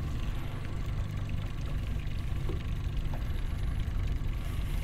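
Small boat's outboard motor idling with a steady low rumble.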